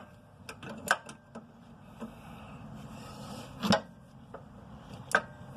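Ratchet wrench working against a seized nut on a Corvette sway bar link: scattered metal clicks and clanks, with a few louder knocks, as the nut refuses to break loose.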